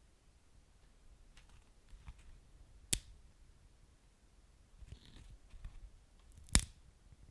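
Wood fire crackling softly, with scattered small crackles and two sharp pops, about three seconds in and again near the end.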